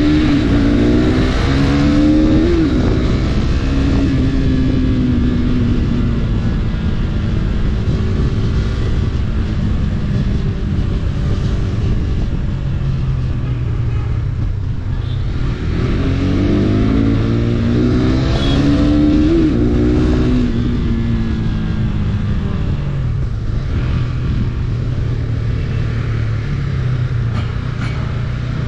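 KTM RC 390's single-cylinder engine under way in traffic, its pitch climbing and then falling back twice: once near the start and again about two-thirds of the way through. Steady wind and road noise runs underneath.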